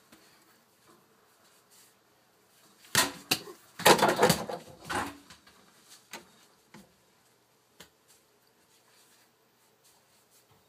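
A burst of knocks and rustling for about two seconds, starting about three seconds in, then a few lone clicks.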